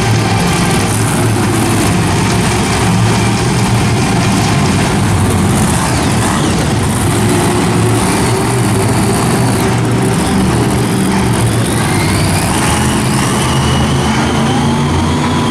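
Monster truck engines running in a stadium: a loud, steady din of big engines. A few faint rising whistling tones come in near the end.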